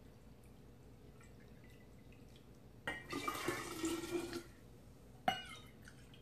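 Apple cider vinegar poured from a plastic bottle into a measuring cup, a splashing pour lasting about a second and a half, about three seconds in. A single sharp knock follows about a second later.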